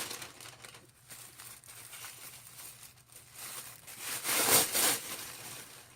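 Wrapping paper crinkling and rustling as a bag is lifted out of it, with a louder burst of crinkling about four and a half seconds in.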